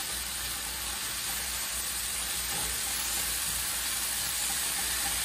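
Beet greens sautéing in olive oil in a nonstick skillet, sizzling steadily as they are stirred with a spatula.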